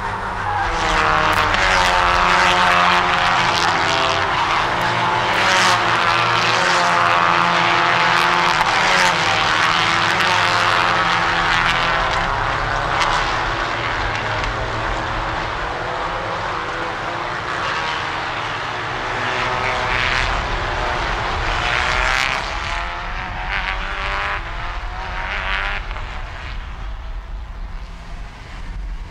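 Volkswagen Ameo Cup race cars running at racing speed past the trackside microphone. Their engine notes swell, sweep up and down in pitch, and fade as the pack goes by.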